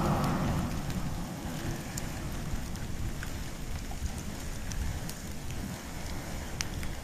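Wood and bamboo burning in an open fire: a low rumble of flames with scattered sharp crackles and pops, louder at the start and easing within about a second.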